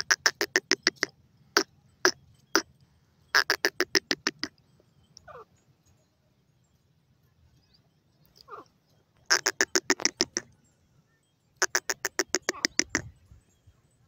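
Grey francolin calling: quick runs of sharp, evenly spaced notes, about nine a second, each run lasting about a second and repeated several times with pauses between. A couple of fainter drawn-out notes fall in the gaps.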